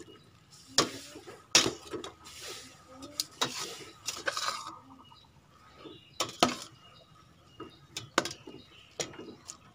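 Perforated metal skimmer clinking and scraping against the side of a stainless steel pot as vegetables are turned over in hot water. The sharp clinks come at irregular moments, about eight in all, with a stretch of softer stirring noise a few seconds in.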